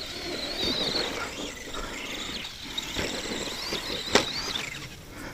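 Arrma Granite RC monster truck's electric motor and gears whining as it is driven, the high whine wavering and rising and falling with the throttle. A sharp click about four seconds in.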